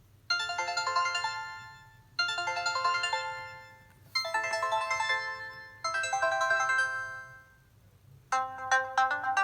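Nokia Lumia 520 ringtone playing: a short melody repeating four times, about every two seconds, each phrase fading before the next. Near the end a different, faster ringtone melody starts.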